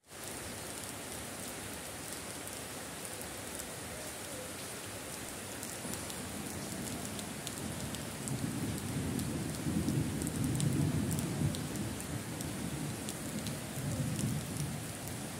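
Steady rain falling on a concrete path and garden plants: an even hiss with scattered ticks of drops. About eight seconds in, a low rumble swells up for several seconds and fades again near the end.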